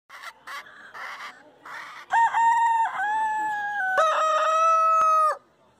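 Chickens give a few short clucks, then a rooster crows about two seconds in. The crow is one loud call of several notes that ends in a long held note and cuts off near the end.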